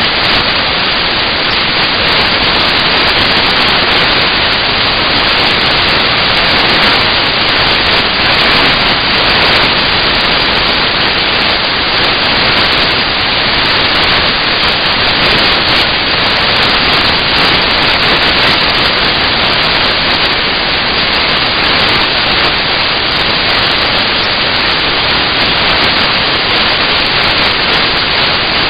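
Loud, steady static hiss like white noise, cutting in suddenly and drowning out everything else.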